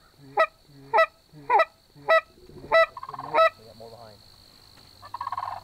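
Canada goose honks: about seven loud, sharp honks in a quick, regular series, each a little over half a second apart. Fainter, lower honking follows, with a buzzy call near the end.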